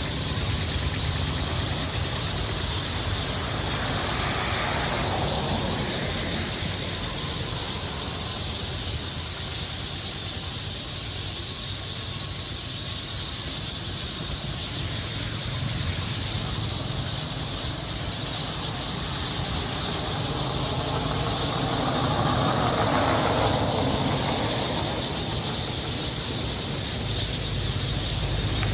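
Outdoor road ambience: a steady low traffic rumble under a constant high hiss, swelling twice as vehicles pass, about four seconds in and again around twenty-three seconds in.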